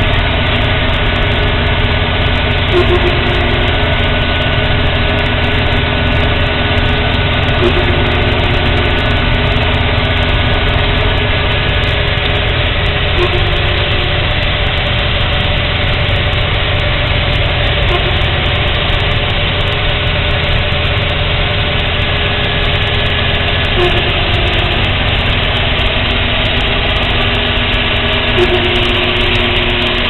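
John Deere 6920S tractor and Standen Vision XS potato harvester running steadily, a loud constant engine and machinery drone. A short higher tone recurs about every five seconds.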